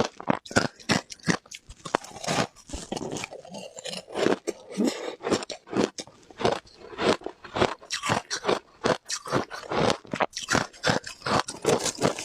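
Mouth crunching and chewing frozen ice, a steady run of sharp crunches about two to three a second, thickening into continuous grinding for a few seconds early in the run.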